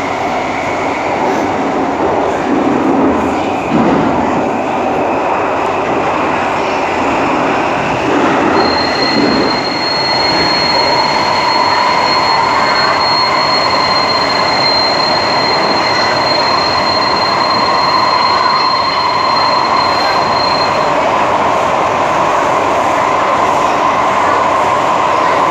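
SMRT C151A train running between stations, heard from inside the car: a steady rumble of wheels and traction equipment. About eight seconds in a thin, high steady tone starts and holds for roughly twelve seconds, and from about ten seconds on a steadier mid-pitched tone runs under the noise.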